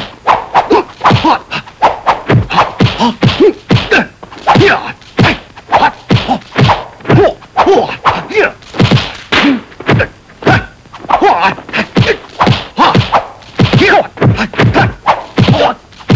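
Kung fu fight sound effects: a rapid, unbroken series of punch and block impacts, several a second, with the fighters' short grunts and shouts between the blows.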